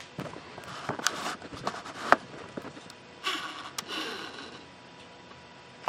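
Handling noise: scattered clicks and knocks with a brief rustle, as the camera is moved and repositioned.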